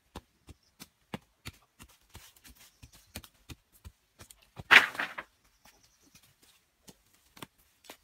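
Short sharp knocks of a hand tool striking at the base of a wooden post as it is set in the ground, about three a second at first, then quicker. About five seconds in, a loud clatter, typical of a bundle of bamboo poles being thrown down.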